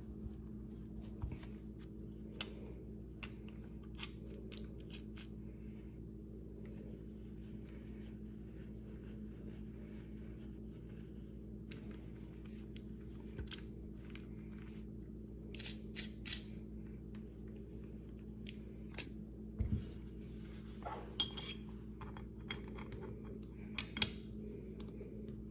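Scattered small metallic clicks and taps from handling a pistol slide and gunsmithing tools while fitting a rear sight, over a steady low hum; the taps come more often in the second half.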